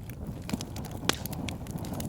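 Campfire burning with a low steady rumble and scattered wood crackles and pops, one sharper crack about a second in.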